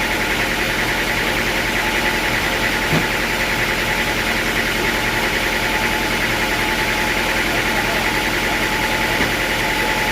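Sawmill's engine running steadily at an even speed, with one brief knock about three seconds in.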